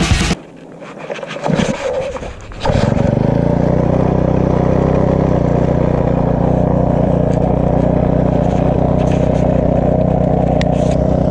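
Honda GE25 brushcutter's 25 cc four-stroke engine being pull-started. It catches about two and a half seconds in, then idles steadily.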